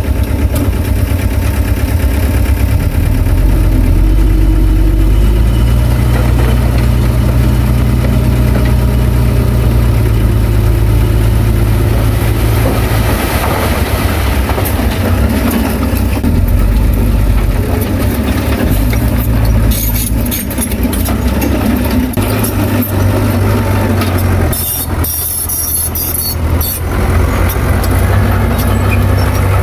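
Heavy diesel engine of earthmoving machinery running under varying load, its note shifting a few times. Bursts of short metallic knocks and rattles come in about two-thirds of the way through.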